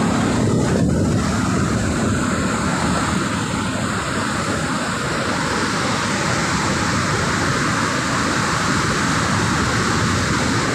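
Dam sluice water rushing and churning white over a concrete weir: a steady, even rushing noise, with wind buffeting the microphone.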